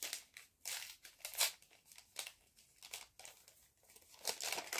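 Paper packaging crinkling and rustling in short, irregular bursts as a small paper packet is handled and opened by hand.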